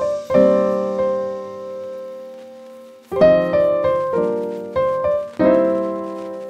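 Solo piano music: a chord struck and left to ring for nearly three seconds, then a quicker run of chords, the last one held and dying away.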